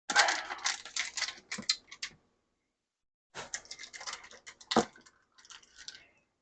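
Small clicks, taps and scrapes of a spoon and containers being handled while a bowl of chili is topped with sour cream, in two short spells with a pause between.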